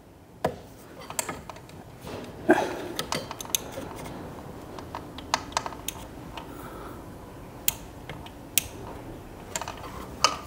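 Irregular small clicks and taps of hands working at a metal control box, popping out rubber grommets and handling the plastic tubing and push-fit fittings.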